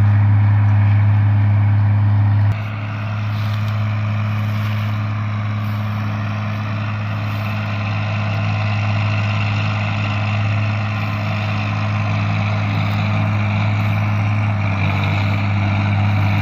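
John Deere 4430 tractor's six-cylinder turbo diesel running under load, driving a John Deere 3950 forage harvester chopping corn for silage: a loud steady drone with the whir of the chopper. The sound drops suddenly about two and a half seconds in, then runs on steadily.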